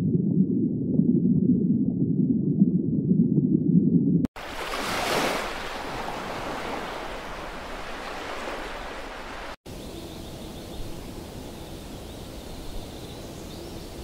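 Nature ambience clips joined by two abrupt cuts: a muffled low rumble, then a rushing water-like noise that swells about a second after the cut and slowly fades, then a steadier, quieter hiss with a faint high tone.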